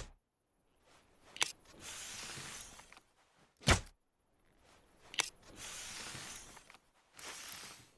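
Compound bow and arrow sound effects: three sharp cracks, about a second and a half in, in the middle and about two-thirds through, the middle one the loudest and deepest, with airy whooshing hiss lasting about a second between them.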